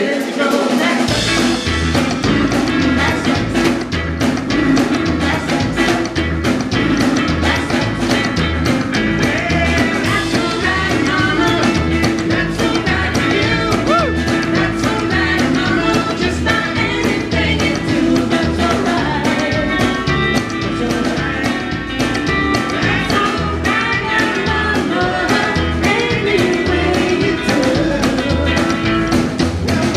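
Live rockabilly band playing: electric guitar, upright double bass and drum kit with a steady, driving beat. The bass and drums come back in about a second in after a brief break.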